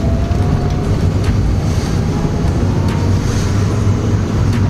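Engine and road noise of a 2008 Mini Cooper S with a 1.6-litre turbocharged four-cylinder, heard from inside the cabin while driving: a steady low rumble, with a faint whine rising slightly in pitch during the first second.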